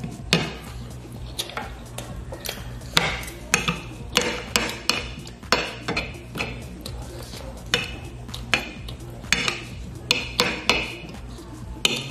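A metal fork and spoon clinking and scraping against a bowl of noodles and meatballs: irregular sharp clinks, sometimes several in quick succession. A low steady hum runs underneath.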